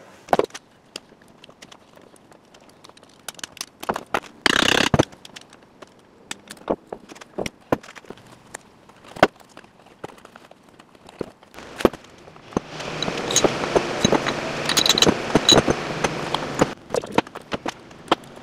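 Steel CV-joint parts and hand tools being handled on a wooden workbench during CV joint disassembly: scattered metallic clicks and clinks. A short scrape comes about four and a half seconds in, and a longer, louder stretch of scraping and rattling runs through the last third.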